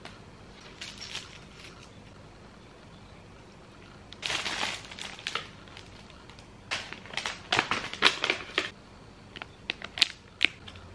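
Crinkling and rustling of packaging being handled, in several short irregular bursts, with a few sharp clicks near the end.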